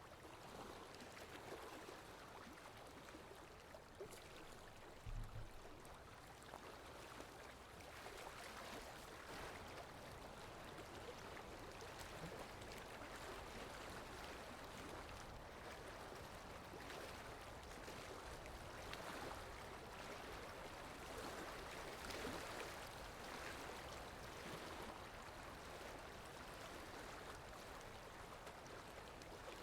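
Faint, steady wash of water, with a brief low thump about five seconds in.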